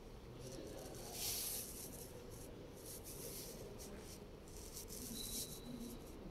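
Quiet room tone in a gallery, with a brief rustling rub about a second in: handling noise from the phone microphone being carried and turned between exhibits.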